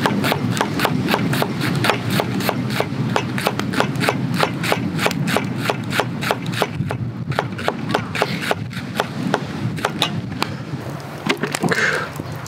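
Kitchen knife chopping a green onion on a wooden cutting board: quick, even chops about four to five a second, thinning to a few scattered knocks after about eight seconds.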